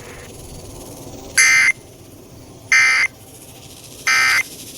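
Emergency Alert System end-of-message tones on a NOAA Weather Radio broadcast: three short, harsh data bursts, each a fraction of a second long and a little over a second apart, over faint radio hiss. They mark the end of the severe thunderstorm warning.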